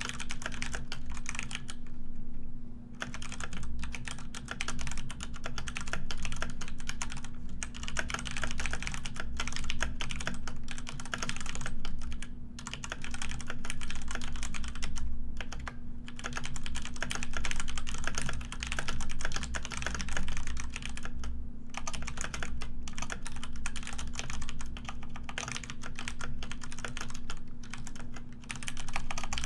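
Continuous fast typing on a computer keyboard, a dense patter of key clicks with a few short pauses, over a faint steady low hum.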